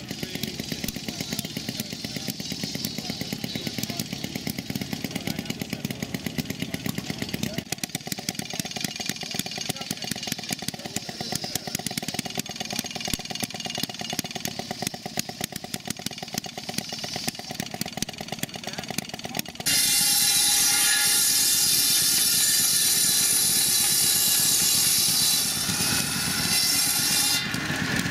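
Small antique gasoline engines running with a fast, even popping exhaust. About twenty seconds in, an engine-driven circular buzz saw cuts into a log with a loud, high rasping sound for several seconds.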